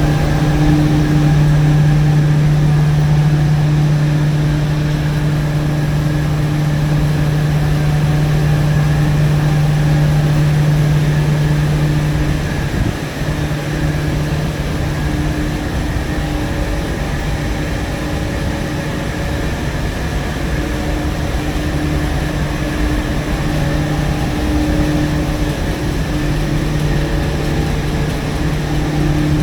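Steam boiler plant machinery, such as draft fans and pumps, running steadily: a loud, even mechanical hum with a constant low tone. The hum dips briefly about 13 seconds in, then carries on.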